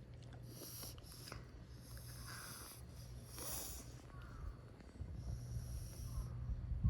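A pet cat snorting and breathing noisily through its nose in a series of about five short, irregular snorts.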